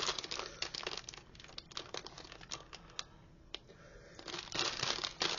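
A plastic instant-ramen packet crinkling as it is handled, with dense crackling at first, only scattered crackles in the middle, then thick crackling again near the end.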